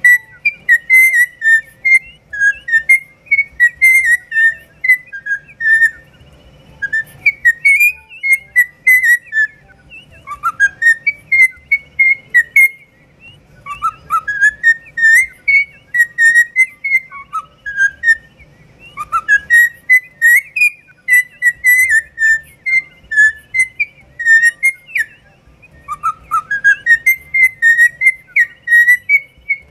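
Cockatiel whistling its song: bouts of clear warbling whistles, many phrases opening with a rising glide, each bout lasting a few seconds with short pauses between.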